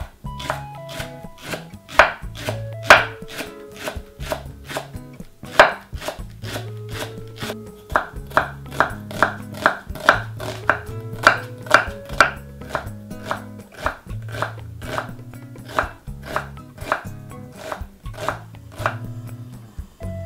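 A kitchen knife chopping green onion and then onion on a wooden cutting board: a long run of quick, regular knife strikes against the board, over soft background music.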